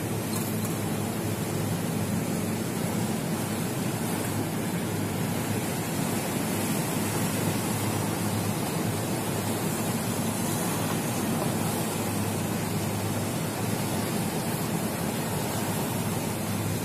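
Steady rushing noise of wind and choppy sea, with a low, even hum underneath.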